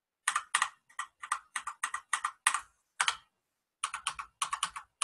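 Typing on a computer keyboard: a quick, irregular run of keystrokes, with a short pause a little after three seconds in.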